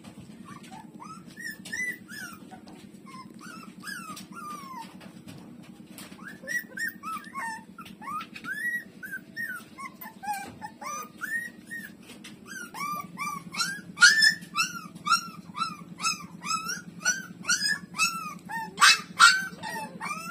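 Puppies whimpering and squeaking in short, high, arched whines, sparse at first, then coming faster and louder in the second half, over a steady low hum.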